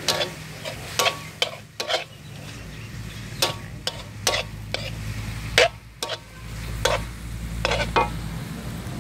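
Metal spatula scraping and clanking against a metal wok in a dozen or so irregular strokes as chopped pork is stir-fried, with the pork sizzling in the oil between strokes.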